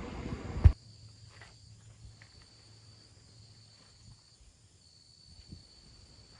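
Faint outdoor ambience with a steady, high insect buzz like crickets. A single brief thump comes just under a second in, after which the background noise drops away.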